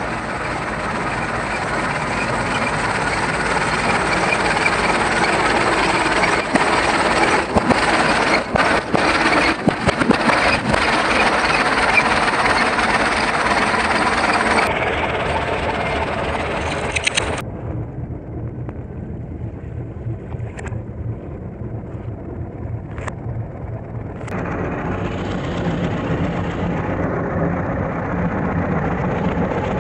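Farm tractor engine running steadily as its tyre rolls over balloons and toys, with a quick run of sharp pops and cracks about a third of the way in as balloons burst under the tyre.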